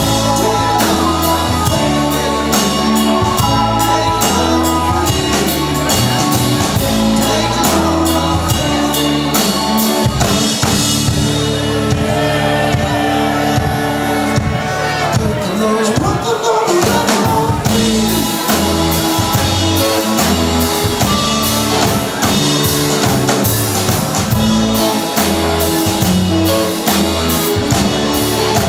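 Live rock band playing: drum kit, bass guitar, electric guitar and organ, with singing over it, in a large hall.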